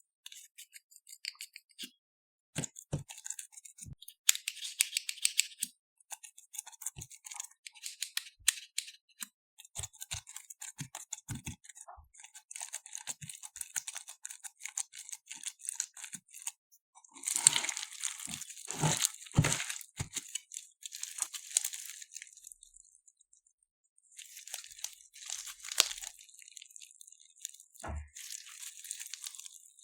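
Crunchy floam slime (clear glue slime packed with foam beads) being squeezed and pressed by hand, with dense, irregular crackling and popping of the foam beads. It is busiest and loudest about two-thirds of the way through, with a few soft thuds, and pauses briefly just after.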